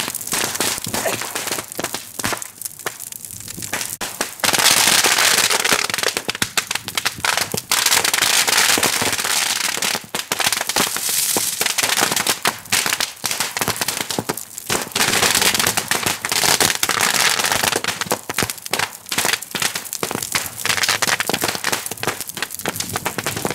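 Strings of firecrackers going off inside a burning ceremonial boat pyre: a dense, irregular run of rapid bangs and crackles, which gets louder about four and a half seconds in.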